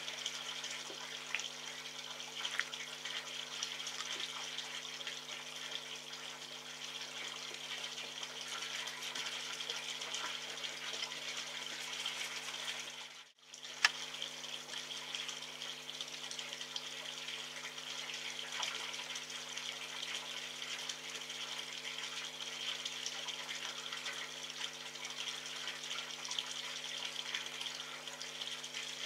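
Steady hiss over a low steady hum, with faint scattered ticks of a red fox eating from a metal tray. The sound cuts out for a moment about thirteen seconds in, and a single sharp click follows.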